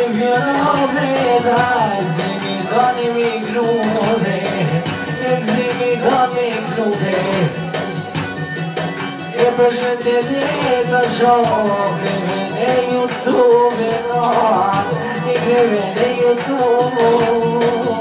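A man singing an Albanian song into a microphone over amplified backing music, his voice wavering and ornamented along the melody.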